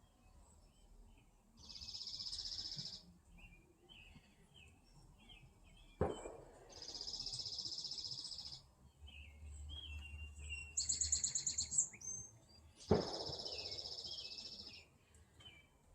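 Wild songbirds calling: soft scattered chirps, three buzzy high-pitched calls lasting over a second each, and a fast pulsing trill about eleven seconds in. Two sharp knocks come at about six and thirteen seconds.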